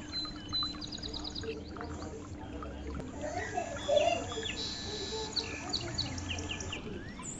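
Small birds chirping and twittering: quick runs of short, high repeated notes and trills throughout.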